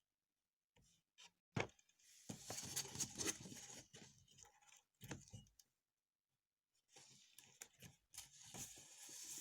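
Faint handling noises: a sharp click, then two stretches of rustling, crackly scraping with small knocks, typical of hands working slime and its plastic container and tools.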